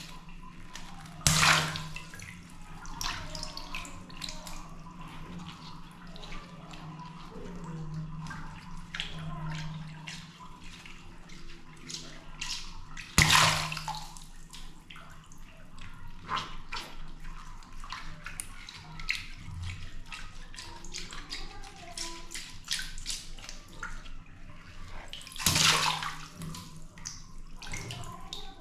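Three water balloons popping and splashing, each a loud sudden burst of spilling water, about twelve seconds apart. Between them, small drips and splashes of water.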